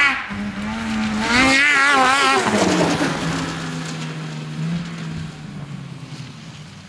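Snowmobile engine revving hard twice, its pitch wavering up and down, then settling into a steadier, lower drone that fades as the sled pulls away.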